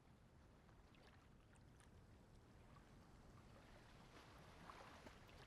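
Faint open-sea ambience: gentle water lapping and sloshing, slowly swelling a little, with a few small watery ticks.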